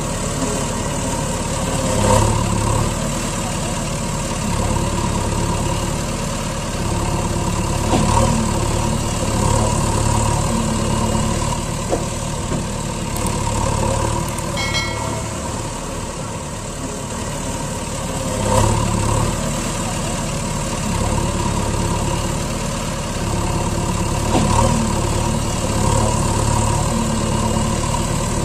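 Truck engine running steadily at idle, swelling now and then every several seconds, most likely a looped engine sound effect standing in for a motorless plastic toy dump truck.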